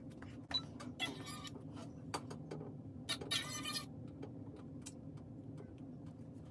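Short rustles and scattered clicks of hands handling a lace front wig and hair, twice about a second in and again past three seconds, over a steady low hum.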